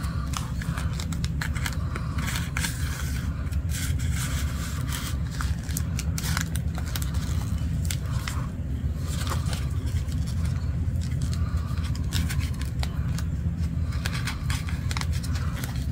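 Paper and candy-bar wrapper rustling and crinkling in the hands, in many short scratchy rustles, over a steady low hum.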